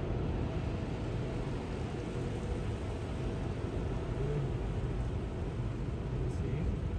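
Rinse water spraying and pouring over a car in an automatic tunnel car wash, heard from inside the closed cabin as a steady, low rushing noise.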